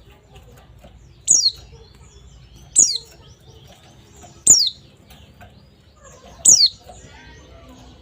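White-eye (pleci) giving four short, sharp chirps, each a quick falling note, spaced about one and a half to two seconds apart. This is the 'ngecal' chirping used as therapy audio to set other white-eyes calling.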